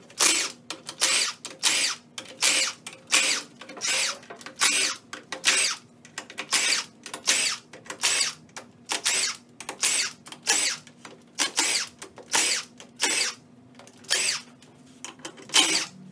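Cordless impact gun with a 14 mm socket, run in short bursts about one to two a second as it spins out the front cover bolts of a JF011E CVT transmission case.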